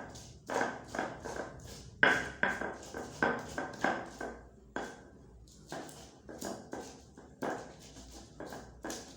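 Kitchen utensils knocking in a steady rhythm, about two strikes a second, each with a short ring; the strikes grow softer about halfway through.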